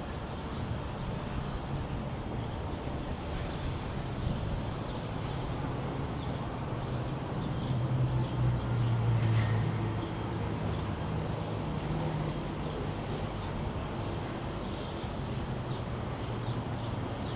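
City street traffic: a steady hum of passing vehicles, with one vehicle passing louder about eight to ten seconds in.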